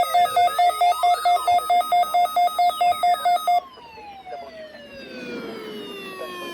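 Electronic alarm: a rapidly pulsing beep, about four to five a second, layered with a wavering siren-like sweep, cuts off abruptly about three and a half seconds in. A long tone then slides steadily down in pitch.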